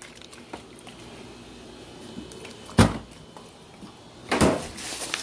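A single sharp knock a little under three seconds in, then a brief clatter about a second and a half later: kitchen handling sounds, a cupboard door or container knocking against the counter.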